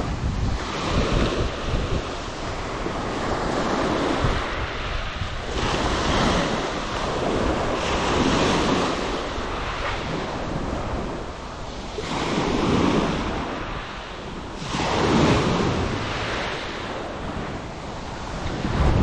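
Small waves breaking and washing up a shingle beach, the rush swelling and fading every few seconds, with wind buffeting the microphone.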